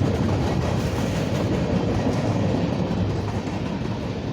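Freight cars of a CSX mixed manifest train, many of them tank cars, rolling past: a steady rumble of steel wheels on the rails with some clickety-clack, easing slightly near the end.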